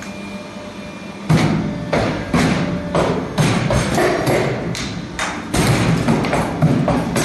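Wire bending and welding machine running: a steady hum, then from about a second in a rapid run of repeated mechanical thumps, roughly two a second, as the machine cycles.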